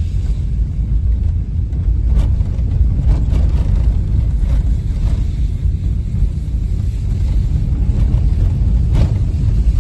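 Steady low rumble of a car driving, with a few faint knocks.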